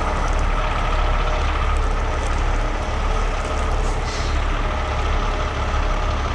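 Heavy diesel truck engine idling: a steady, deep drone with no revving.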